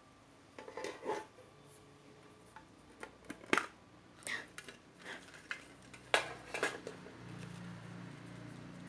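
CD album packaging being handled: a series of scattered sharp clicks, taps and short rustles, with a faint low hum coming in near the end.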